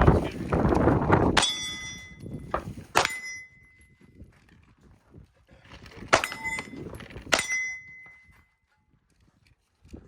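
A string of 9mm Glock 19 pistol shots striking steel targets, each hit clanging and ringing out. There are two quick groups of impacts: three in the first few seconds, then three more a few seconds later.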